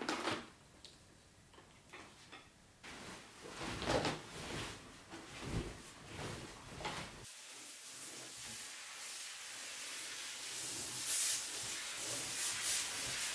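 A large cotton bedspread being handled and spread over an ironing board: fabric rustling and sliding, with a few light knocks in the first half. Through the second half a hiss builds, strongest a second or two before the end.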